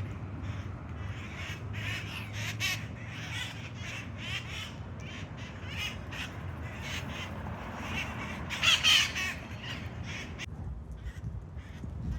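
A flock of wild red-masked parakeets (cherry-headed conures) calling: many short calls in quick succession, loudest about two thirds of the way through, over a steady low hum.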